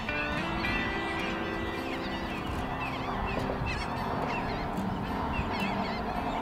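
A flock of gulls calling over and over, many short arched calls overlapping.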